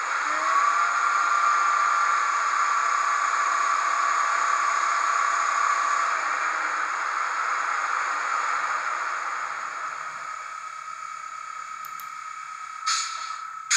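Zimo sound decoder in a Roco ÖBB 1670 model electric locomotive, playing recorded locomotive sound through its single small 15x11 mm speaker: a steady hissing noise with a held tone that grows quieter over the second half. Near the end comes a short, sharp hiss.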